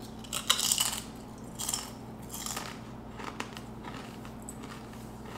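A kettle-cooked potato chip being bitten and chewed. There is a sharp crunch about half a second in, then a few fainter chewing crunches over the next three seconds.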